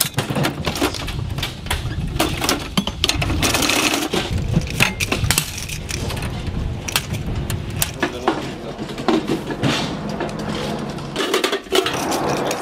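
Belted 12.7 mm machine-gun cartridges and their metal links clinking and rattling as they are laid into a metal ammunition box, with many sharp metallic clicks and knocks.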